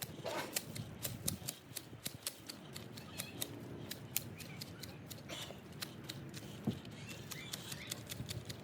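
Hand pruners snipping dead, frost-killed plant stems: a quick, irregular run of sharp clicks and cuts, several a second.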